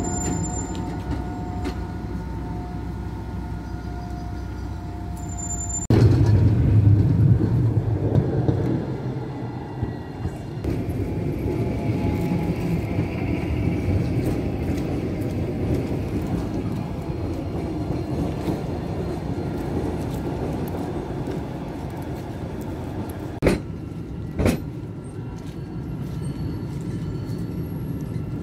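Strasbourg tram running on its rails with a steady low rumble and a whine for the first few seconds. About six seconds in the rumble suddenly grows louder, and near the end there are two sharp knocks about a second apart.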